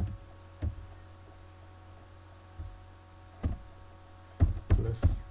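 Computer keyboard keystrokes: a few scattered taps, then a quick run of them about four and a half seconds in, over a steady low electrical hum.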